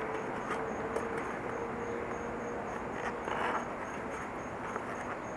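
Hands working a bicycle tire onto its rim: faint rubbing and a few light clicks over a steady background hiss, with a short scuffing burst about three seconds in. A faint high chirp repeats about three times a second throughout.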